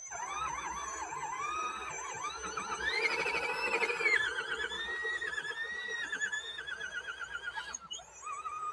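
Electric motors and gearing of scale RC crawler trucks whining, the pitch rising and falling over and over with the throttle and wavering quickly in the second half.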